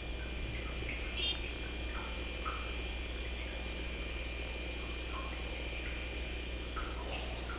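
Steady room tone: a constant low electrical hum and hiss with a thin high whine, broken about a second in by a short, high rattling click, with a few faint soft handling sounds.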